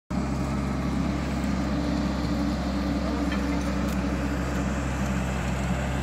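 Diesel engine of a Komatsu hydraulic excavator running steadily, an even low drone.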